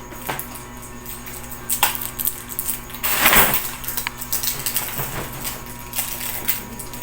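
Small objects being handled: scattered light clicks and knocks, with a short rustle about three seconds in.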